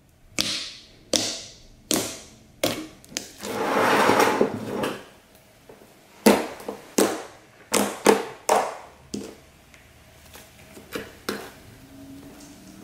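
Elmer's-glue glitter slime being pressed and kneaded by hand: a run of sticky pops and squelches, one to two a second, as fingers push in and pull free. A longer squish comes about four seconds in, and the pops thin out near the end.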